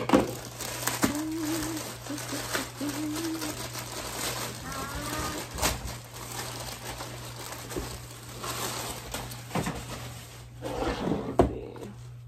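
Plastic mailer bag rustling and crinkling as it is opened and a shoebox is pulled out of it, with a few knocks on the table, the sharpest about 11 seconds in.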